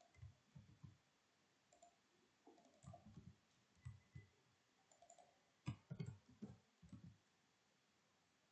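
Faint, scattered clicks of a computer mouse and keyboard being worked, with a quicker run of clicks a little past halfway.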